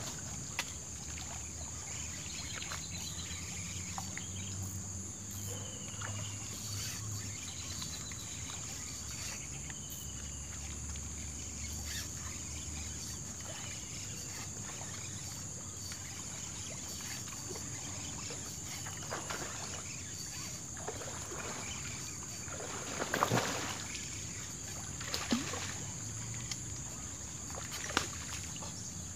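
Outdoor ambience dominated by a steady high-pitched insect drone, with a low hum through the first half, a few short falling bird chirps, and scattered knocks and rustles, the loudest about 23 seconds in.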